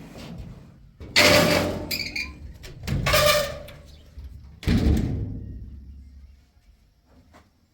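Three loud bangs, each sudden and fading over about a second, the first the loudest.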